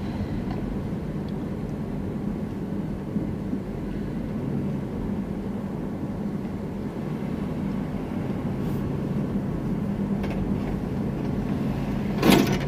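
A car driving slowly, with steady engine hum and road noise. A short, loud burst of noise comes near the end.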